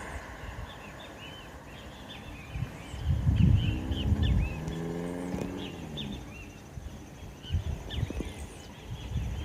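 Many small birds chirping in quick, short calls throughout, over low rumbles that come and go. About four seconds in, a low pitched drone slides down in pitch over a couple of seconds.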